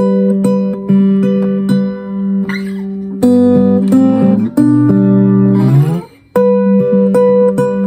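Freshly strung Veelah Togo S acoustic guitar played in a run of ringing chords and notes. About six seconds in there is a slide in pitch, then a short break before the chords resume.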